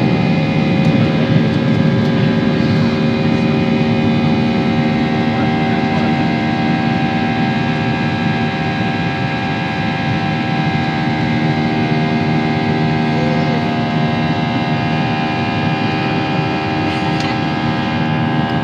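Cabin sound of a Boeing 737-800's CFM56-7B turbofan engines at takeoff power in the initial climb, heard from a window seat over the wing: a steady drone with a stack of steady tones over it.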